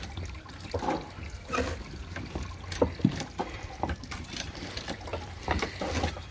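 Apple juice trickling from a wooden basket cider press into a plastic bucket, with irregular clicks and knocks from the press's bottle jack as its handle is pumped.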